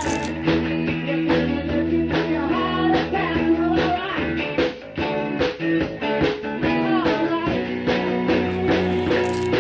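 Rock music with guitar, a steady beat and singing.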